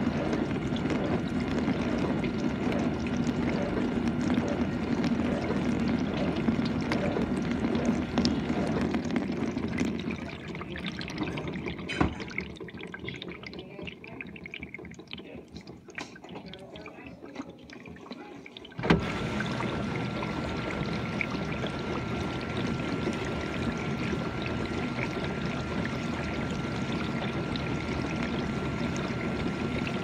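GE dishwasher running, with water splashing inside and a low hum. About ten seconds in the hum stops and the sound drops to a quieter trickling, with a click a couple of seconds later. A little before twenty seconds in it starts again with a sudden thump and runs on with a steady whine over the splashing.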